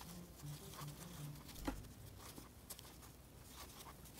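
Faint rustling and light clicking of a metal crochet hook pulling worsted yarn through stitches, with one sharper click about a second and a half in.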